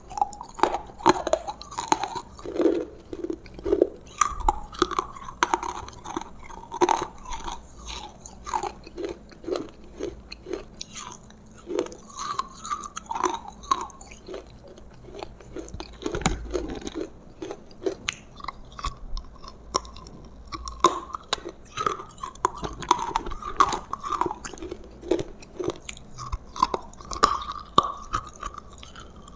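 Close-miked chewing of roasted food: wet, irregular mouth smacks and crunches in a steady run of bites.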